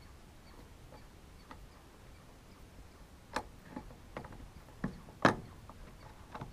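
A few separate light clicks and knocks as Husqvarna T435 top-handle chainsaw parts are handled and fitted together. They start about three seconds in, and the sharpest knock comes about five seconds in.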